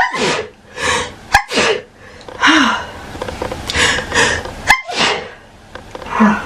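A woman sneezing several times in quick succession, a sneezing fit with short breaths between the sneezes.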